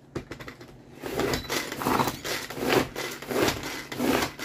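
Tupperware Power Chef pull-cord chopper being pulled over and over, starting about a second in, with a whirring, rattling pulse roughly every three-quarters of a second as its blades churn a dry crumble mix of butter, oats, flour and brown sugar.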